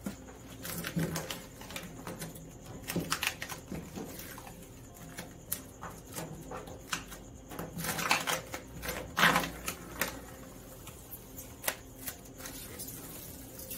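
Vinyl wrap film being handled on a body panel: irregular crinkles, rubs and light clicks as it is pressed down by hand, with a busier run of rustling about eight to nine seconds in and the film pulled back off the panel near the end.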